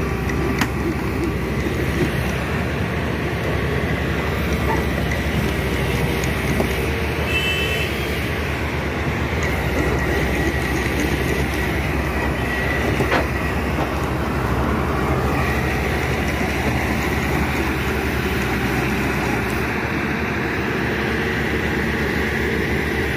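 Diesel engines of crawler excavators working hard under load, a steady heavy rumble with a faint high whine running through it.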